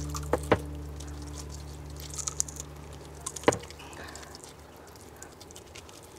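Wet handling sounds of a mud carp's skin being peeled off its flesh by hand: faint squishing and crackling with a few sharp clicks, the loudest about three and a half seconds in. Steady background music fades out about halfway through.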